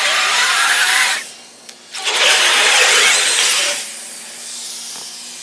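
Hot knife sizzling into a giant water bead, with steam hissing and squealing in two loud bursts: the first stops about a second in, the second runs from about two seconds to nearly four. A fainter steady hiss follows.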